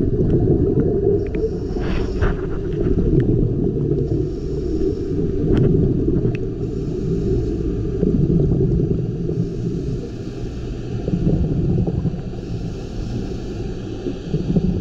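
Muffled underwater rumble picked up by a camera in a waterproof housing, with a few sharp clicks scattered through it.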